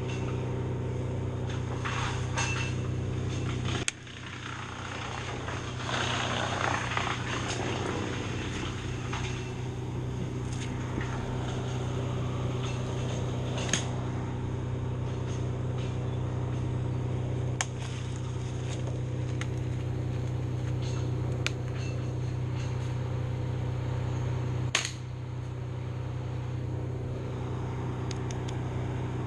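An engine running steadily, with a few sharp knocks and a stretch of rougher noise about six seconds in.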